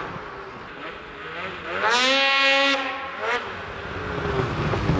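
An engine revving up, holding for under a second and dropping back, then giving a second short blip of the throttle.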